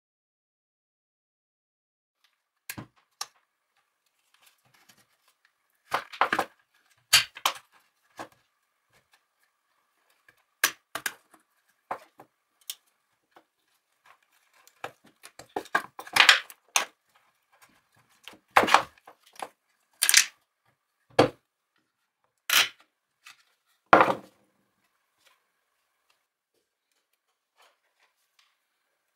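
Bosch PWS 850-125 angle grinder being taken apart by hand: irregular clicks, knocks and rattles of its plastic housing and metal motor parts, with quiet gaps between.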